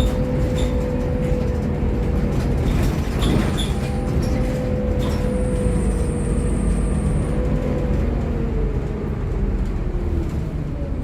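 Onboard sound of a Volvo B7TL double-decker bus: the six-cylinder diesel drones steadily with a transmission whine, and interior fittings rattle. Late on the whine falls in pitch as the bus slows down.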